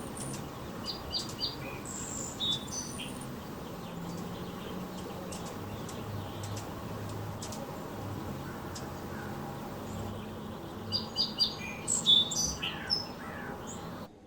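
Small birds chirping: short, high chirps in two clusters, in the first few seconds and again near the end, over a steady low background rumble.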